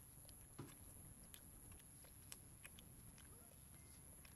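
Near silence with a few faint, small clicks and smacks from a long-tailed macaque sucking milk from the teat of a plastic baby bottle.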